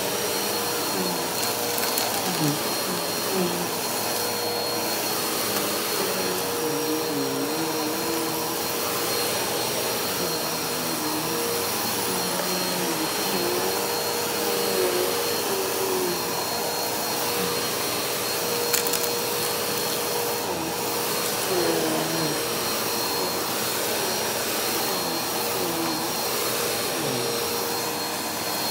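Upright bagless vacuum cleaner running steadily while pushed back and forth over carpet, with one sharp click about two-thirds of the way through.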